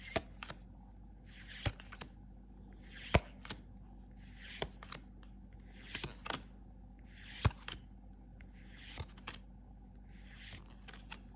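Stack of trading cards flipped through one at a time in the hands: a short papery slide with a sharp flick about every second and a half as each card is moved from front to back.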